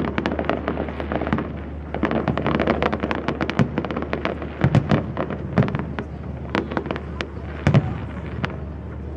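Aerial fireworks display: a dense run of crackling and popping shell bursts, with a few louder bangs about halfway through and again near the end.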